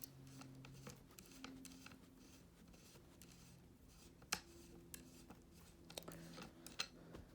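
Faint, scattered clicks and scrapes of a Smith & Wesson M&P 15-22 rifle's parts being handled during disassembly, with one sharper click about four seconds in.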